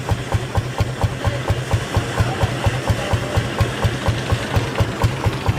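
Lanz Bulldog tractor's single-cylinder two-stroke hot-bulb engine running steadily, firing in an even, slow beat of about five strokes a second.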